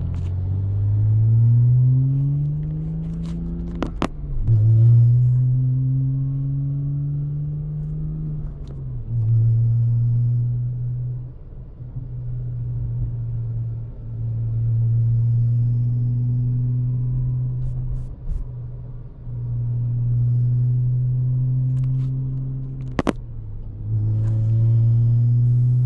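Porsche Cayman S flat-six through a Fabspeed race exhaust, driven in several stretches. The engine note rises, then holds level at a steady speed, and there it makes a low buzzing drone that comes back again and again, with dips between. It is the exhaust drone that the owner finds incredibly annoying. Two sharp clicks are heard, about four seconds in and near the end.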